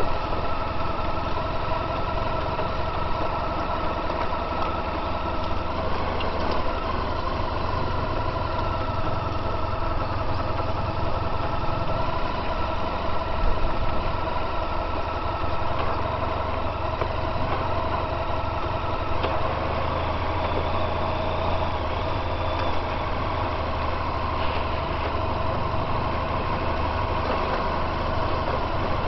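Honda VFR1200X Crosstourer's V4 engine running steadily as the motorcycle rolls along. There is a brief thump about halfway through.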